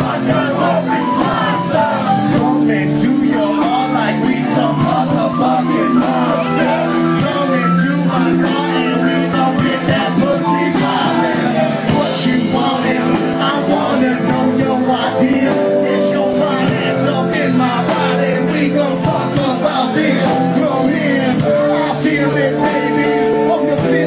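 A live band playing a song, loud and steady, with drums keeping a regular beat under sustained instrumental notes.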